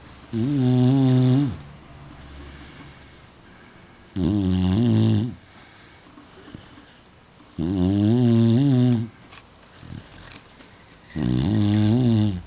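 Tibetan mastiff snoring: four long, loud snores about three and a half seconds apart, with quieter breaths between.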